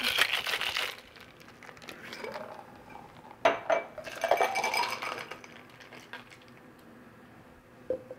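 Ice rattling hard inside a metal cocktail shaker for about the first second. About three and a half seconds in there is a sharp clink, then ice and liquid clatter as the drink is poured from the shaker tin into a glass. A light knock comes near the end as the tin is set down.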